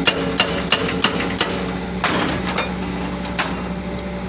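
Excavator-mounted hydraulic rock breaker hammering its chisel into rock at about three blows a second over the steady drone of the Hitachi 130 excavator's diesel engine. The blows stop about a second and a half in while the engine keeps running.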